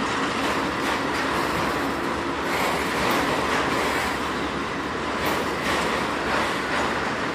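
Freight train led by several diesel-electric locomotives pulling slowly forward, the engines working under load with a steady noise of wheels rolling on the rails.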